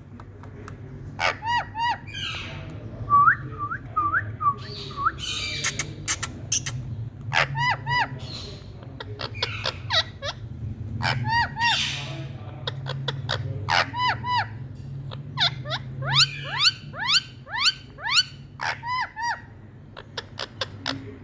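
A parrot giving short, repeated chirping calls, often in quick pairs, with a run of quick rising whistled notes about three-quarters of the way through. A steady low hum runs beneath.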